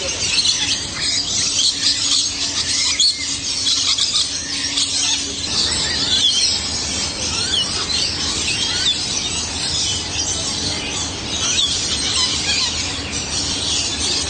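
A loud, dense chorus of many birds chirping and squealing all at once, like a flock in an aviary.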